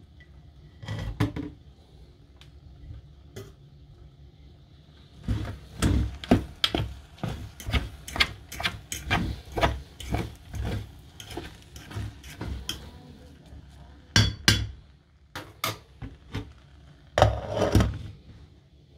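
A utensil knocking and scraping in a rice cooker's pot as the cooked rice is stirred: a fast run of short clatters, then a few louder knocks as the glass lid is handled near the end.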